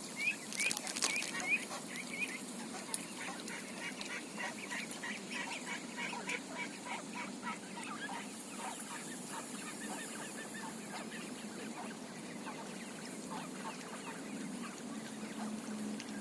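Ducks calling on a lake in a rapid chatter of many short calls, loudest in the first couple of seconds and thinning out over the last few seconds, with a few sharp clicks near the start.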